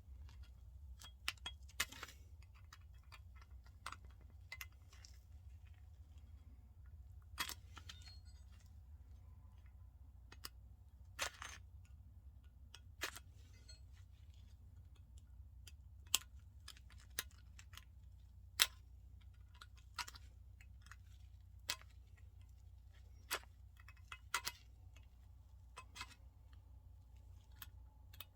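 Scattered light clicks and small knocks, one every second or two, from hands and tools working on a truck seat's armrest and its bolt, over a low steady hum.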